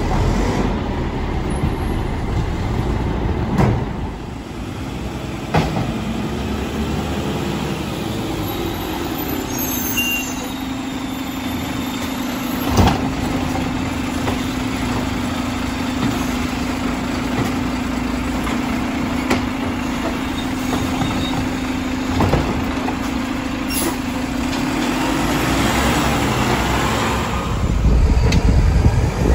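Mack garbage trucks at work: diesel engines running, with a steady hum through the middle while a side loader's automated arm lifts a cart. Several sharp knocks of metal and cans are mixed in, and the sound gets louder near the end.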